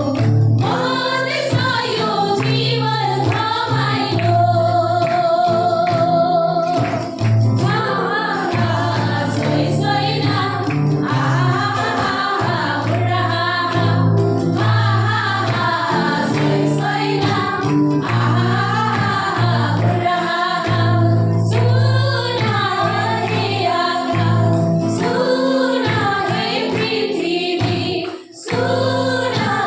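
A group of women singing a Christian worship song in Nepali over steady instrumental accompaniment.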